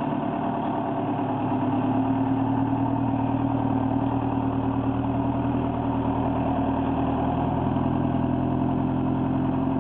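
4BT Cummins four-cylinder turbo diesel in a 1954 Chevy pickup, running at a steady low speed under load as the truck climbs a hill.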